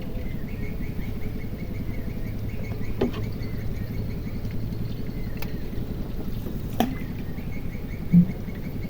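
A small boat engine running steadily with a low hum. Two sharp clicks come about three and seven seconds in, and a short dull knock, the loudest sound, comes near the end.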